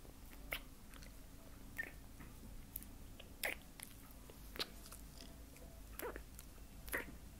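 A few faint, short lip smacks and mouth clicks, spaced a second or more apart: soft kisses.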